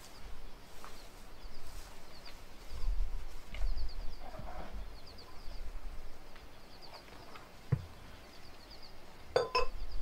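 Scattered knocks and clinks of containers being handled beside a plastic drum, the loudest a quick pair near the end. A bird chirps in repeated short runs throughout, over a low rumble.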